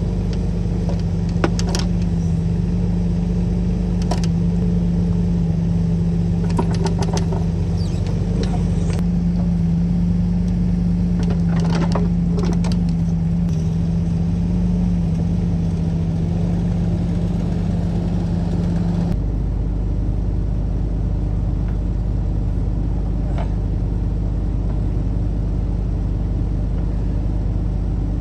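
Compact excavator's diesel engine running steadily with a low hum, with several sharp metallic clanks and knocks in the first half as the rubber track is worked on. The engine note changes abruptly about two-thirds of the way in.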